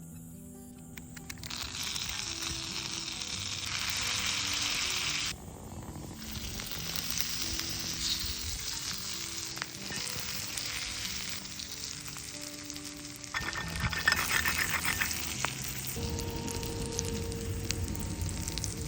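Sausages sizzling as they fry in garlic butter in a pan, with soft background music under it. The sizzle starts about a second in, breaks off briefly around five seconds and gets louder a little past the middle.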